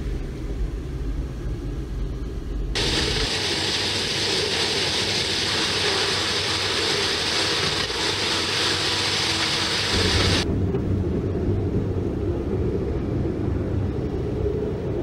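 Low rumble of a Jeep Wrangler hyrail vehicle running on railroad track, heard from inside the cab. About three seconds in, it gives way to a steady rush of river water under a railroad bridge. About ten seconds in, the in-cab rumble of the Jeep on the rails returns.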